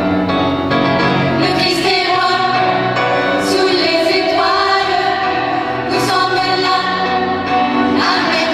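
Church choir singing sustained chords with organ accompaniment; sung 's' consonants hiss out at a few points.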